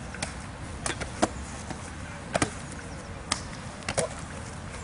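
A rugby ball slapping into players' hands as it is caught and passed, about seven sharp slaps at irregular intervals, with two close together about two and a half seconds in.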